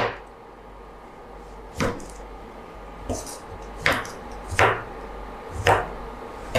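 Chef's knife cutting tomato halves into wedges on a wooden cutting board. Each stroke ends in a sharp knock of the blade on the board, about six strokes spaced unevenly, the first the loudest.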